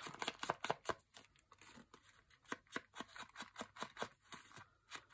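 Ink blending tool brushed and dabbed over the edges of paper: a run of short, scratchy strokes, about three a second, with light paper rustling.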